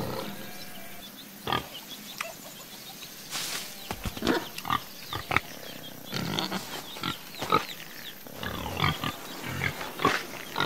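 Pigs grunting, a string of short, separate grunts scattered through.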